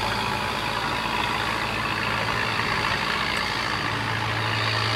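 Engine running steadily with a low, even hum, amid steady outdoor background noise.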